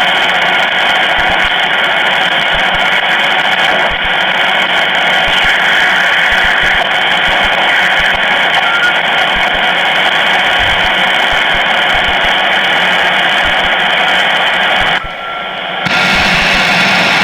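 Shortwave radio receiver's speaker hissing with static, with faint steady whistles in the noise. The static drops away for about a second near the end, then comes back.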